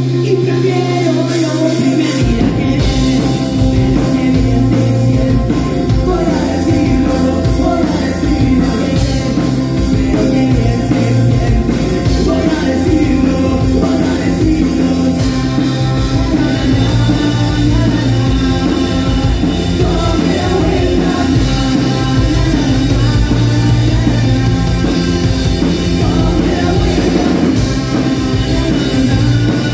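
Live rock band playing a song with singing; the drums and full band come in about two seconds in, after a held low opening.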